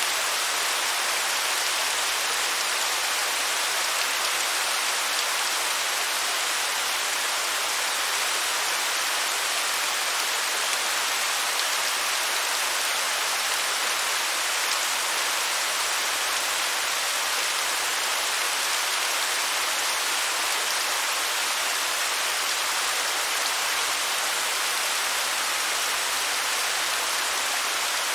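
Waterfall: falling water splashing in a steady, high hiss with little low rumble.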